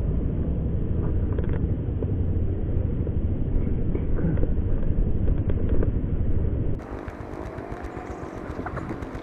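Steady low rumble, like a vehicle on the move, which cuts off suddenly about seven seconds in. After it comes quieter open-air ambience with a few faint gliding calls.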